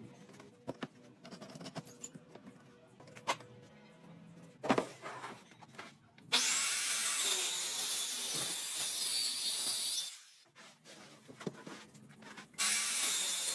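A few seconds of scattered knocks and clicks of wood being handled. Then a handheld electric power tool runs loudly and steadily on wood for about four seconds, stops, and starts again near the end.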